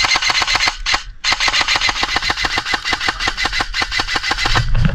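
Airsoft gun firing on full auto: a fast, even rattle of shots that breaks off briefly about a second in, resumes, and stops near the end.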